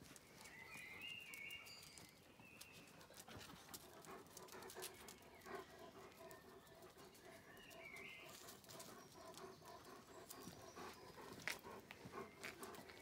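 Faint clicking and scuffling of paws on concrete as dogs and a tabby kitten play. A few short high chirps come about a second in and again around eight seconds, and a faint steady hum runs through the middle.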